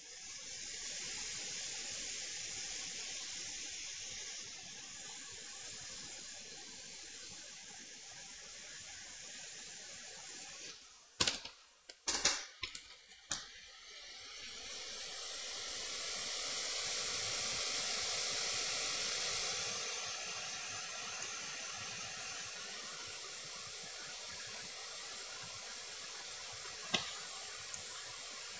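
Hot air rework station blowing a steady hiss of air onto the motherboard to reflow solder. A few sharp clicks come about eleven to thirteen seconds in while the hiss drops out, then the airflow builds up again and runs on.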